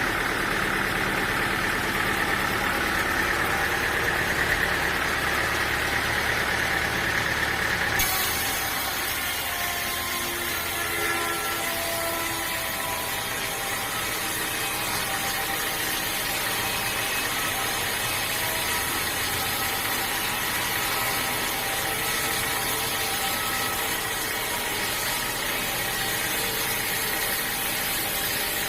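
Sawmill machinery running steadily, an engine-driven hum with no cutting strikes or impacts. The sound changes abruptly about eight seconds in.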